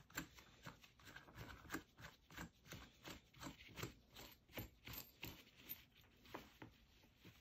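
Faint, repeated small clicks and scrapes, about two or three a second, as gloved fingers spin a locking flange nut along the threaded axle bolt of a pair of suitcase wheels.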